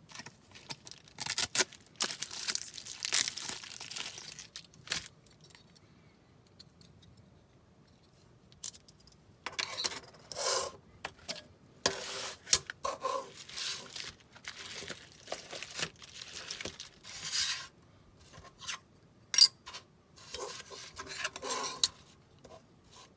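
Packaging being handled and torn open: crinkling and tearing in irregular bursts with short pauses, and a few sharp clicks.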